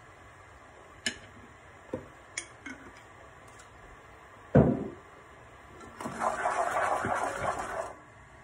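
A few light clicks and one loud knock of kitchen things being handled, then a wooden spatula stirring and scraping in a speckled nonstick pot for about two seconds near the end.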